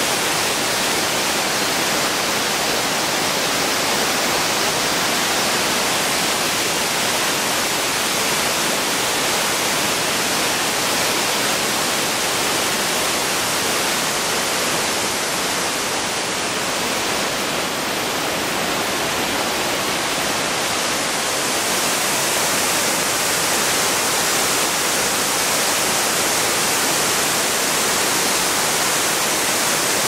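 Waterfall with a drop of over 20 m, falling down a rock cliff: a loud, steady rush of falling water, slightly duller for a few seconds past the middle.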